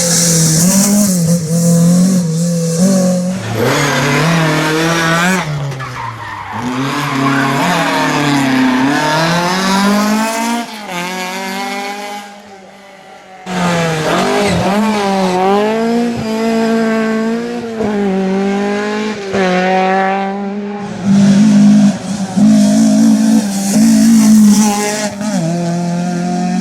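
Fiat 131 Abarth rally car's four-cylinder engine driven hard, revving up and down through repeated gear changes and lifts. Its sound drops away briefly about halfway and then comes back. A hiss of tyre noise rises at the start and again near the end.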